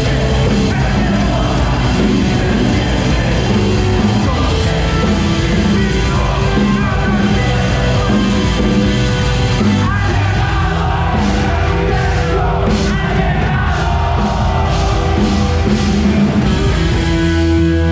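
Rock band playing loudly live, with sung and shouted vocals over guitars and drums.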